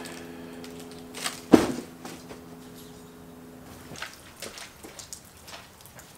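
A single sharp knock about a second and a half in, then a few light clicks, over a steady hum that stops about four seconds in.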